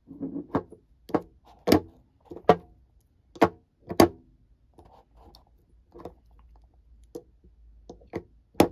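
Perfume bottle cap clicking against the bottle as it is put on and taken off: a quick run of sharp clicks, loudest in the first four seconds, then softer ones, with one more loud click near the end.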